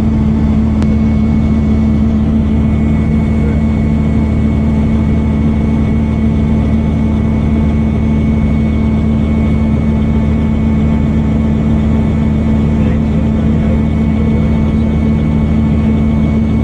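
Robinson R44 Raven I helicopter's six-cylinder piston engine and rotors running steadily, with a thin high whine that comes in about a second in.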